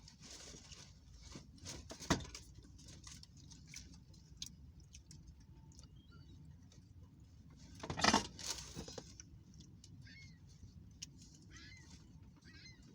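Rustling and crackling of a nacho tray and tortilla chips being handled, with louder rustles about 2 seconds in and again about 8 seconds in. A few faint seagull calls come near the end.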